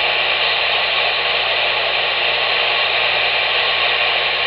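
Steady, loud static hiss from a Cobra 140 GTL CB radio's receiver, even and unbroken with no voice in it.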